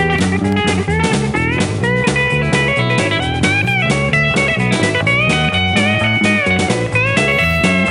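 Background music: a guitar playing notes with pitch bends over a steady drum beat.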